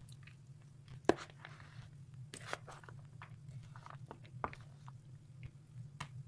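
Salad of grated carrot, corn, beans and chicken stirred with a metal spoon in a plastic bowl: scattered clicks and crunchy scrapes, the sharpest a knock about a second in, over a steady low hum.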